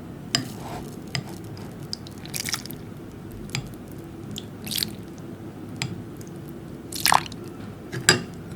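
Wet, sticky slime squishing and popping in a few short, scattered squelches a second or two apart.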